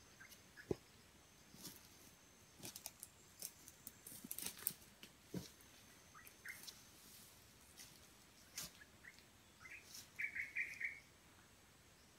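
Scattered crackling of footsteps in dry leaf litter and twigs. A short burst of bird chirps comes near the end, and a faint thin high insect-like tone runs through the first half.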